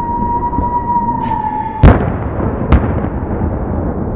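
Aerial fireworks: a steady high whistle that cuts off just under two seconds in, then two sharp bangs a little under a second apart, the first the louder, over the continuous noise of the display.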